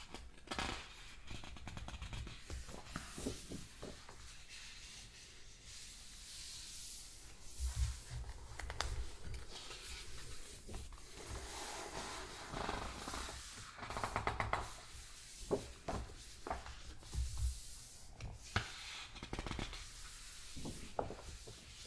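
Glossy pages of a large hardcover book being turned one after another close to the microphone: paper rustling and crackling, with a few soft low thumps as pages settle and hands press on the book.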